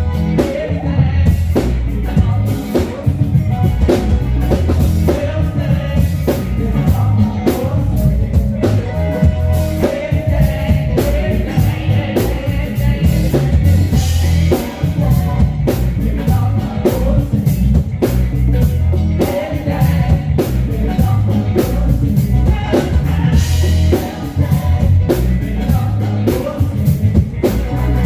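Church worship band music: drum kit keeping a steady beat under bass, guitar and singing.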